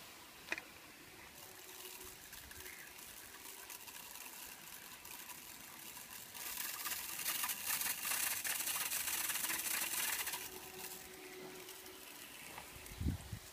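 Water spraying in a fine shower over a wet blue-fronted amazon parrot bathing on a branch, with the rustle of its wet wings; the spray is loudest for about four seconds in the middle. A single sharp click about half a second in and a few low thumps near the end.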